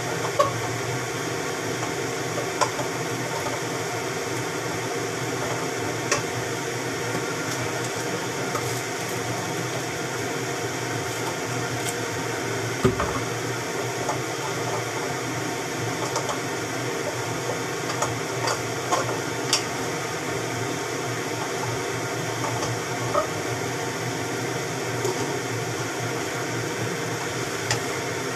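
Steady hum and hiss of stovetop cooking, with a dozen or so light knocks of a wooden spatula against the pans as food is stirred.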